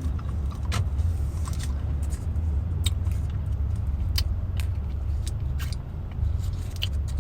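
Steady low rumble of a car cabin on the move, with scattered light clicks and taps on top.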